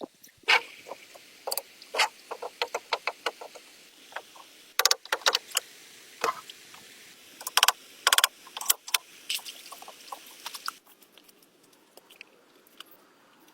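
Irregular sharp knocks and clicks with a few short scraping strokes, like wood and tools being handled during hand building work. The sounds thin out and grow quieter after about eleven seconds.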